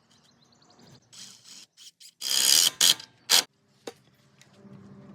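Plywood scraping and rasping in several short strokes, the loudest about two seconds in, followed by two sharp knocks.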